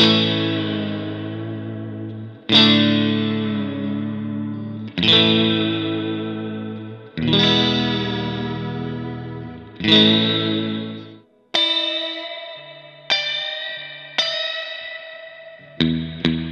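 Electric guitar played through an Ampeg R-212R Reverberocket combo amp as a sound check after its repair: five chords struck and left to ring out, about every two and a half seconds. Then lighter, higher single notes and chords, and a few quick strums near the end.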